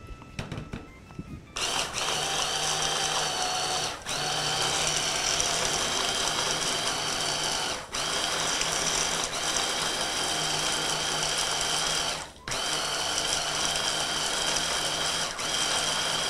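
Stick-blender motor driving a chopper-bowl attachment, grinding sesame seeds, peanuts, dried coconut and raisins. A few handling knocks as the motor is set on the bowl, then about a second and a half in the motor starts with a steady whine and runs with four short breaks.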